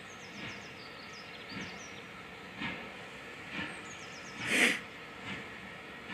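Steam locomotive approaching while working under steam, its chimney exhaust beats coming about once a second, the loudest about two-thirds of the way through.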